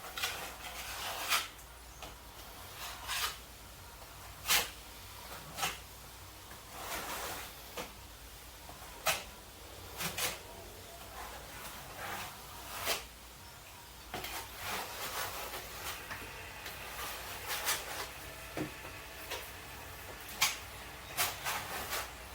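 Irregular knocks, clicks and short scrapes of things being handled and set down, a dozen or so sharp ones spread through, over a low steady hum.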